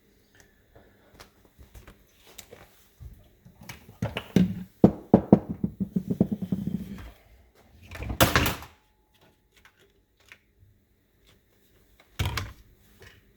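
Handling noises at a workbench: scattered clicks, then a close run of knocks, clicks and rubbing, followed by two short noisy bursts, one about eight seconds in and one near the end.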